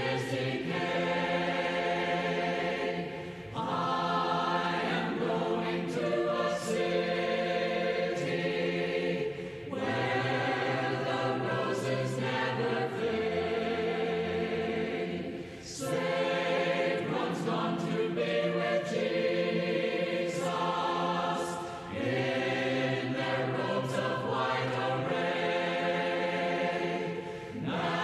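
Choir singing a gospel hymn a cappella, in phrases of about six seconds with short breaks between them.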